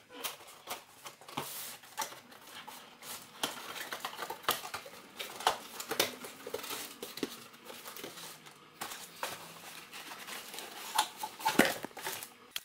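Cardboard helmet box being handled and its flaps pulled open, with rustling and crinkling of the packing as a helmet in a cloth bag is lifted out. A quick run of small scrapes and crackles, loudest about eleven seconds in as the bag comes out.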